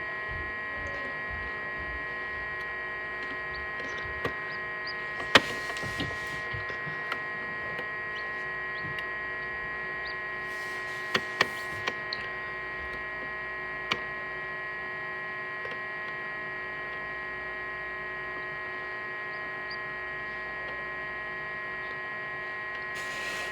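Egg incubator's fan running with a steady electrical hum, several tones held constant. A few short sharp clicks break in, the loudest about five seconds in and a quick pair around eleven seconds.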